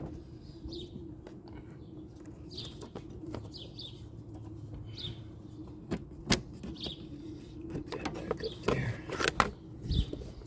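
Birds chirping over and over above a steady low hum. Sharp clicks come about six seconds in, then a clatter of clicks and knocks near the end from work in a car's engine bay.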